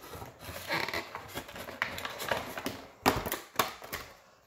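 Clear plastic packaging crinkling and crackling in the hands as it is worked open to get a toy's accessories out, with scattered sharper clicks.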